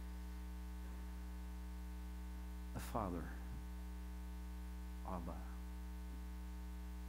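Steady electrical mains hum, a low buzz with a ladder of even overtones, running under two brief spoken words.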